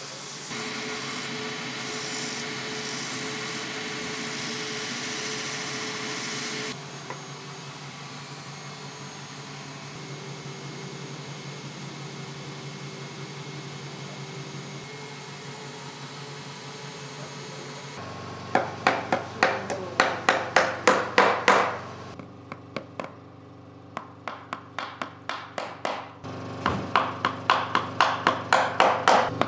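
Runs of quick hammer taps, about four a second with short pauses between runs, in the second half: a cobbler hammering on a shoe sole. Before them a steady mechanical whir lasts several seconds and cuts off, leaving a faint hum.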